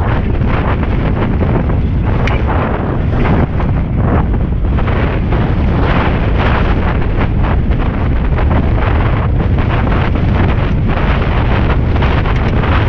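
Heavy wind buffeting the microphone of a rider moving along a rough trail, with frequent knocks and rattles from the bumps.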